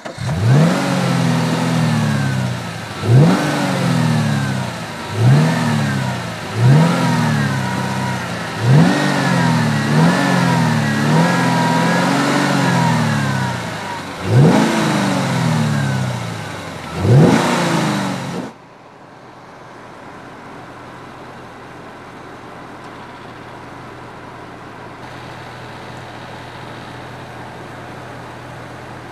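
2013 Chevrolet Camaro's 6.2-litre V8 idling and being blipped about eight times, each rev rising sharply and falling back to idle. About two-thirds of the way through the engine sound cuts off abruptly, leaving a quieter steady hum.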